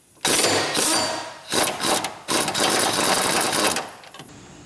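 Pneumatic impact wrench hammering 14 mm engine mount bolts loose, in three loud bursts of rapid impacts that stop shortly before the end.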